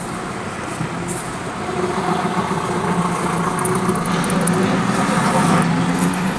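Pickup truck engine running with road noise while driving, a steady engine hum getting gradually louder.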